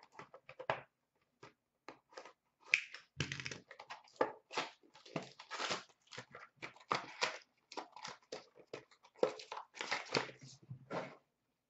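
Hands opening a sealed trading-card box and its wrapped contents: irregular crinkling, tearing and handling of cardboard and plastic wrapping.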